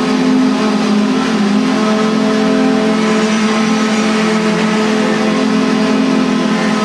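A machine running steadily: a loud, even drone of several held tones over a hiss, with no change in speed.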